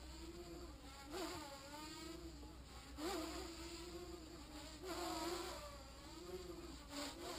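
Small quadcopter's propellers buzzing in flight, a thin whine whose pitch wavers up and down with throttle. It swells louder about every two seconds.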